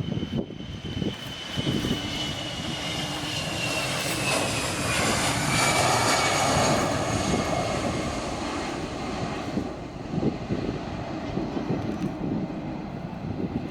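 A fixed-wing airplane passing close by, its engine noise swelling to a peak about halfway through and then easing off, with a high whine that falls steadily in pitch as it goes by.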